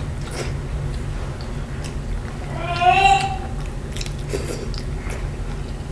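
Close-miked chewing and mouth sounds of someone eating shrimp and vegetables by hand, with scattered small clicks over a steady low hum. About three seconds in comes a brief high-pitched call from a small child.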